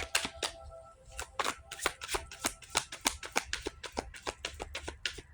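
Tarot cards being shuffled by hand: a quick, irregular run of light card clicks and flicks.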